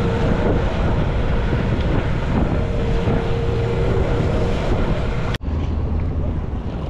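Hangkai 12 hp outboard motor running steadily as the small boat moves along, with wind buffeting the microphone. About five seconds in it cuts off suddenly to quieter wind noise.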